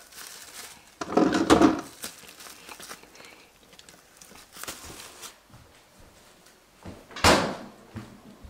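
A squeeze bottle of ketchup squirting with a rough sputter for about a second, starting a second in. Near the end comes a single sharp knock.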